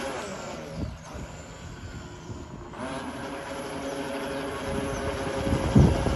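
Megatech Caribbean Cruiser RC boat's electric motor running at speed, a steady whine over the rush of its wake. It eases off about a second in and picks back up just under three seconds in, with a thump near the end.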